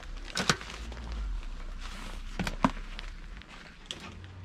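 Footsteps, a few uneven steps with sharp snaps and crunches, over a low steady rumble.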